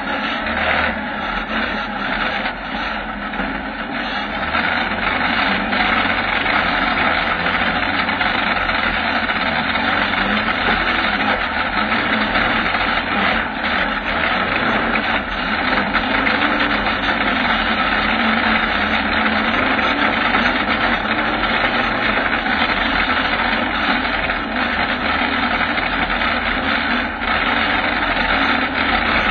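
Kawasaki ZX-9R inline-four motorcycle engine in a homebuilt 4x4 buggy, running steadily as the buggy drives slowly over rough ground, heard close up from a camera on the buggy's frame.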